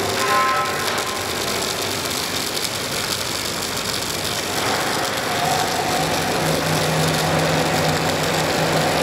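Robotic wire-fed (MIG) welding arc crackling and hissing steadily. About four and a half seconds in, a steady low machine hum joins it.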